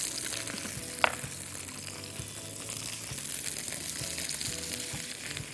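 Diced bell peppers sizzling in hot oil in a frying pan as more pieces are tipped in and stirred, with a single sharp clink about a second in.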